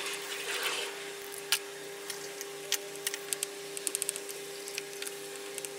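Scattered small clicks and ticks of a screwdriver working the cable terminal screws on a Victron MPPT 100/30 solar charge controller, with a quick cluster of clicks about four seconds in, over a steady low hum.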